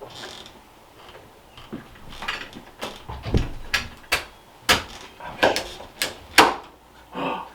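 Sharp metallic clicks and knocks of door-lock hardware being handled and fitted into a door: a run of about ten short strikes, louder in the second half.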